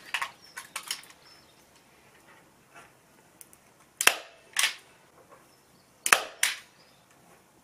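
DeWalt staple gun firing staples through velvet upholstery fabric into a wooden headboard frame: four sharp clacks in two quick pairs, after a few lighter clicks near the start.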